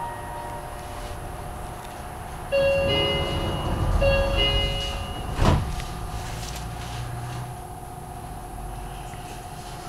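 Door-closing chime on a commuter train, sounding twice, then the car's sliding passenger doors shut with a thump about five and a half seconds in.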